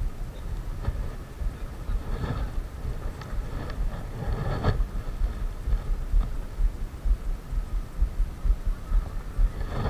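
Wind rumbling on the microphone, with a few short knocks and rustles from handling the fishing rod and bait.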